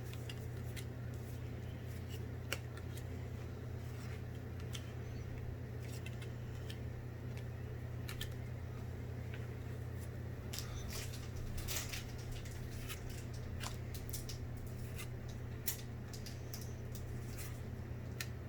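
Pokémon trading card booster packs being opened and the cards handled: scattered crinkles, snips, clicks and rustles of foil wrapper and cards, over a steady low hum.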